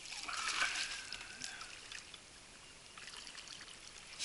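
A hooked crucian carp thrashing and splashing at the water's surface as it is drawn toward a landing net, the splashing strongest in the first second or so. A bird sings a thin whistle in the background.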